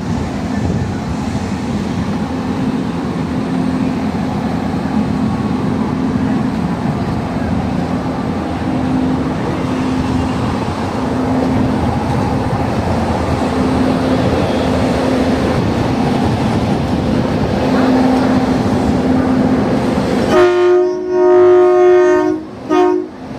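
Electric train running at the platform, a steady rumble with a low hum from the locomotive. Near the end a train horn sounds loudly for about two and a half seconds, broken by two short gaps.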